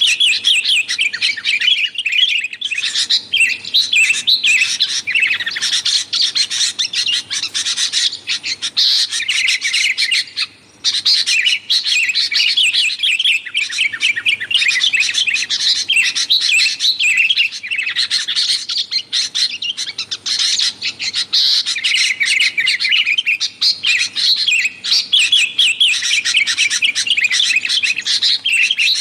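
Sooty-headed bulbuls (kutilang) calling noisily, a busy run of rapid chattering chirps that goes on almost without a break, pausing only briefly about ten seconds in.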